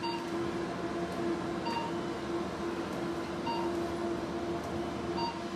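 Fractional RF microneedling machine beeping as the handpiece fires its shots: a short beep about every second and a half to two seconds, four times, over a steady hum.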